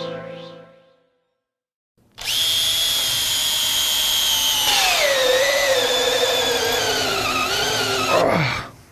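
Cordless drill driving a bi-metal hole saw into a wooden board. The motor starts about two seconds in with a steady high whine, then its pitch sinks as the saw drags in the cut, and it winds down near the end. The saw is struggling in the wood: a bi-metal hole saw heats up and clogs with chips in wood.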